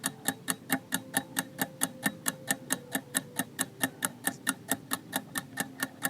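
Countdown timer sound effect ticking like a clock, about four even ticks a second, marking the time to answer a quiz question.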